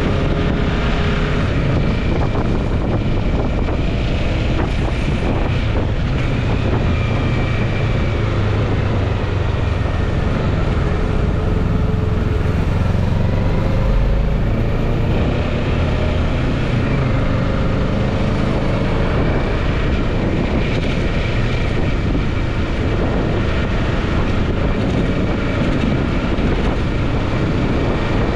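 Kawasaki Ninja 650's parallel-twin engine running at low road speed in heavy traffic, its note rising and falling gently with the throttle, under a steady rumble of wind and surrounding traffic.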